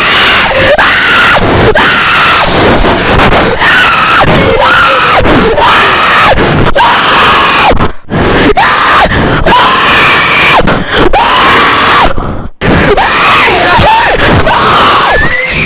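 Very loud human screaming, one drawn-out cry after another rising and falling in pitch, broken by two short gaps about halfway through and again a little later.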